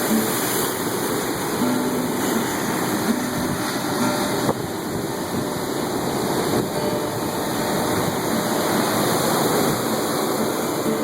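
Surf washing on a shore: a steady rushing noise that rises and falls a little in level, with no distinct knocks or tones.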